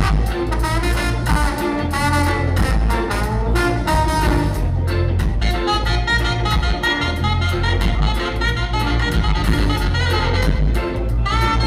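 Live ska band playing an instrumental passage: saxophones and trombone carry the melody over heavy bass, drums, electric guitar and keyboard.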